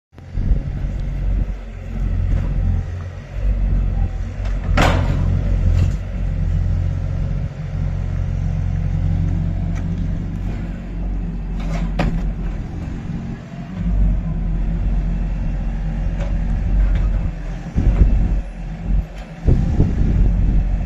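Yuchai U35 mini excavator's diesel engine running steadily with a low rumble. Two sharp knocks stand out, one about five seconds in and one about twelve seconds in.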